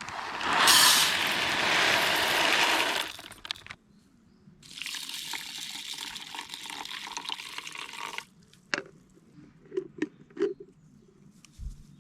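Water poured into a cooking pot for rice, twice: a louder pour lasting about three and a half seconds, then after a short pause a quieter pour of about the same length, followed by a few light knocks.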